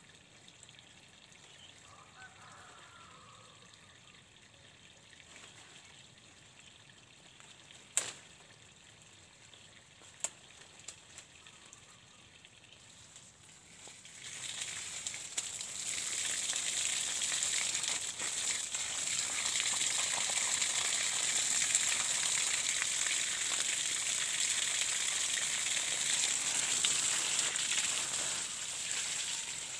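Water spraying from a garden hose onto leaf-littered ground, a steady hiss that starts about halfway through. Before it, a sharp click about eight seconds in and a fainter one a couple of seconds later.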